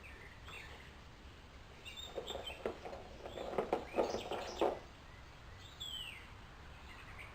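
Birds chirping in short falling calls, with a cluster of short scratchy rustling sounds about halfway through.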